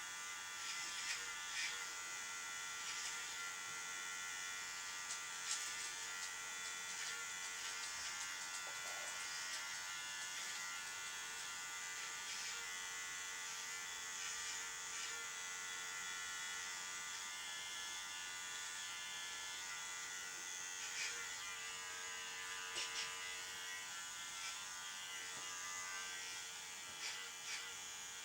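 Electric pet grooming clippers running with a steady buzz, with a few light clicks here and there.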